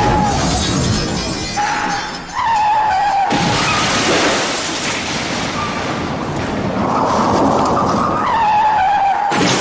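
Car crash sound effects: tyres screeching in wavering squeals, each cut off by a crash of impact and shattering glass. A crash hits right at the start, another after a screech about three seconds in, and a third after a longer screech near the end.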